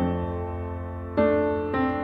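Background piano music: chords struck about at the start, a little over a second in and again near the end, each dying away.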